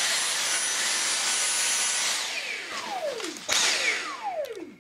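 Dyson V6 Absolute cordless stick vacuum running steadily with a high whine, fitted with its direct drive cleaner head. About two seconds in it is switched off and the motor winds down with a falling whine. Near the end it surges briefly once more and winds down again.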